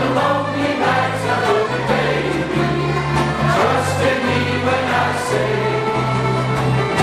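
A group of men singing together, a slow tune sung in long held notes that step from one pitch to the next about every second.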